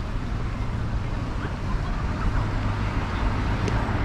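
Street ambience: a steady low rumble with faint voices of people around.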